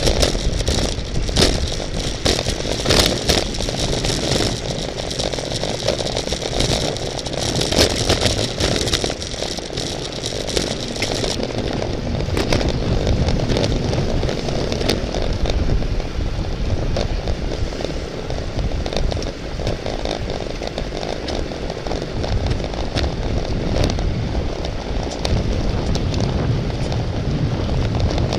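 Wind rushing over the microphone at road-race speed on a bicycle, with frequent short clicks and rattles.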